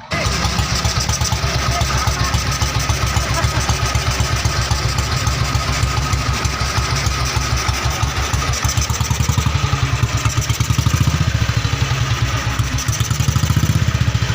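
BSA 350 cc single-cylinder motorcycle engine running steadily with an even, rapid thump.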